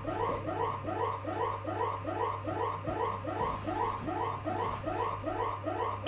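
Emergency alert system alarm tone: a repeating electronic chirp of several tones sounding together, each chirp rising slightly, about three a second, over a steady low hum.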